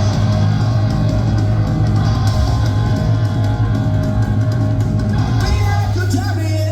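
Punk rock band playing live: distorted electric guitars over bass and a drum kit, with no singing.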